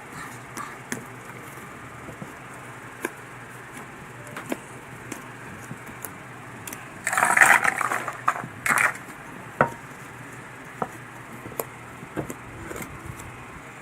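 Slime being worked by hand: scattered small clicks and pops, with a louder stretch of crackling noise about seven seconds in that lasts about two seconds.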